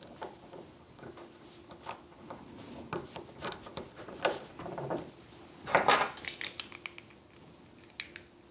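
Small metal clicks and scrapes from a Rosengrens 32A81S disc detainer lock being fitted back together by hand. A sharp click comes about four seconds in and a longer rattle about six seconds in. A couple of clicks near the end come as the flat steel key goes in.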